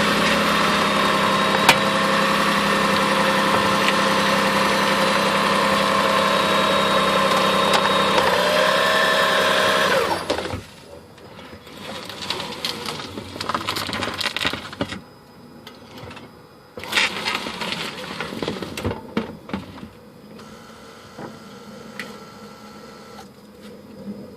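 Lexus RX400h hybrid running steadily with a hum and whine, then cutting off abruptly about ten seconds in. After that come quieter, irregular knocks and clunks.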